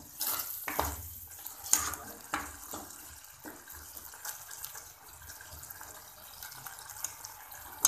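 Metal ladle stirring and scraping a thick turmeric curry in a steel pot while it sizzles as it fries down, with scattered clinks and scrapes against the pot, most frequent in the first three seconds.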